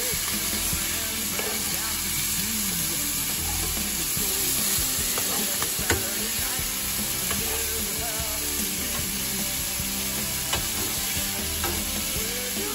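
Blackfish (luderick) fillets sizzling steadily in macadamia oil in a non-stick frying pan. Metal tongs click against the pan now and then as the fillets are turned, most sharply about 6 seconds in.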